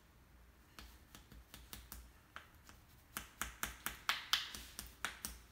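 A spoon tapping and clicking against a ceramic bowl as avocado is mashed in it: a quick run of small knocks, faint at first and louder from about halfway through, some four or five a second.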